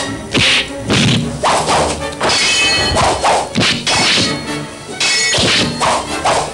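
Sword-fight sound effects: a rapid run of over a dozen sharp whacks and swishes from blade swings and blows, about two a second.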